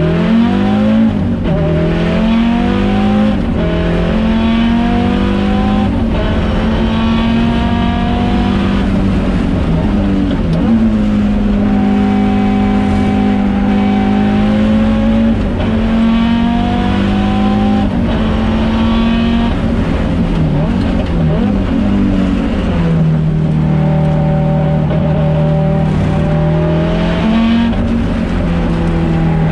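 Audi Sport quattro S1 Group B rally car's turbocharged five-cylinder engine running hard: pitch climbs and drops sharply at each gear change, several times, with stretches of steady high revs and a few dips where the throttle comes off.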